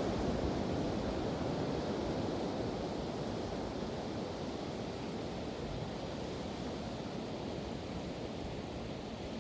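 Pacific Ocean surf washing ashore: a steady rushing wash of waves that slowly eases off.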